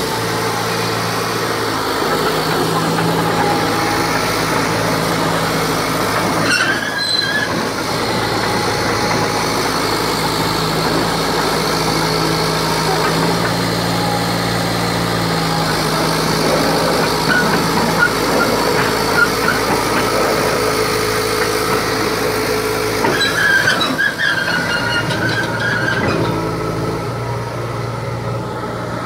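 John Deere 450G LGP crawler dozer's diesel engine running steadily as the machine travels and turns, with squeals from the steel-track undercarriage about seven seconds in and again near the end.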